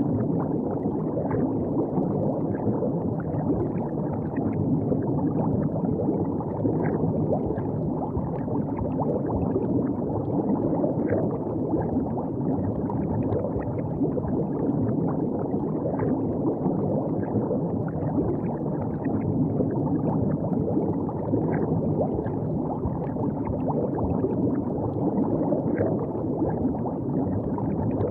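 River water gurgling and lapping steadily close by, a low, dense wash of water with small splashes throughout.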